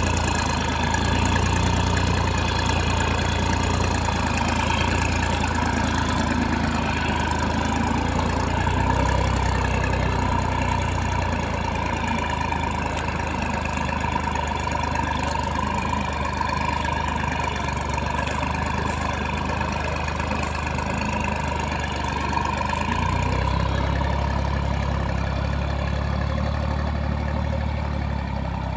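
Massey Ferguson 9500 Smart tractor's three-cylinder diesel engine running steadily under load while pulling a plough through the soil, a little fainter near the end as the tractor moves away.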